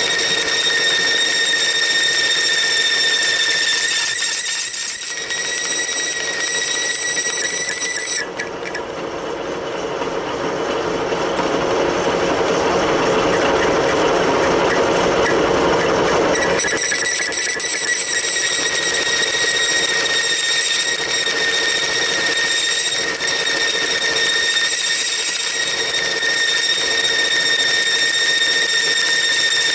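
Metal lathe cutting a dovetail in mild steel, the cutting tool squealing with a steady high-pitched tone. About eight seconds in, the squeal stops for some eight seconds and a rougher, lower cutting noise takes its place, then the squeal returns.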